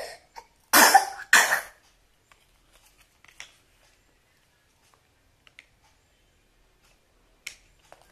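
A child coughs twice in quick succession, then a few faint clicks.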